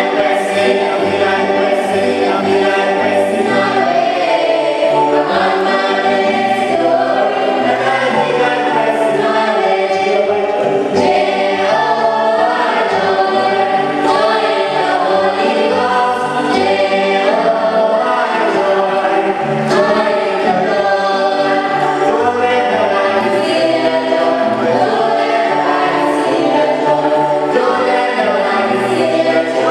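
Church choir singing a hymn, several voices in harmony, sustained notes moving steadily with no break.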